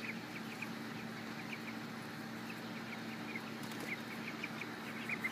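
Chickens peeping and clucking: scattered short high chirps, several a second at times, over a faint steady hum.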